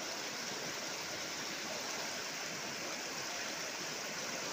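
River rapids: fast-flowing water rushing over rocks in a steady, even wash.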